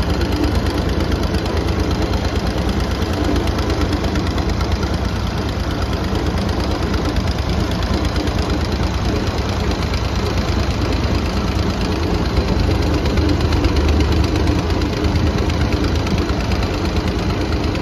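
Vintage Hanomag tractor's diesel engine running steadily as the tractor drives along, with a fast, even beat.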